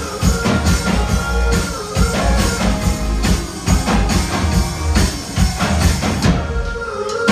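Live rock band playing an instrumental passage with no vocals: electric guitar and keyboard holding chords over a steady drum-kit beat.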